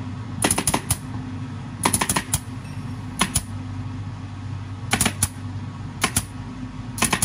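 Pneumatic upholstery staple gun firing in quick bursts of two to four shots, about six bursts in all, as fabric is stapled along the edge of a seat cushion. A steady low hum runs underneath.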